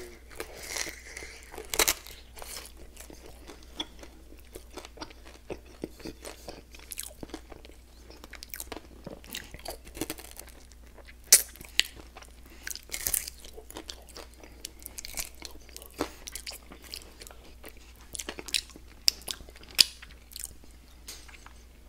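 Close-miked eating of peanut butter and jam chicken wings: irregular chewing and biting sounds with crunches and mouth clicks, a few sharper ones standing out about 11 and 13 seconds in and again near the end.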